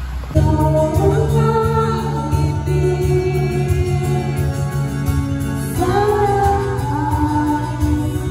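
Karaoke music with singing, a Tagalog song played through PA loudspeakers. It starts suddenly about half a second in.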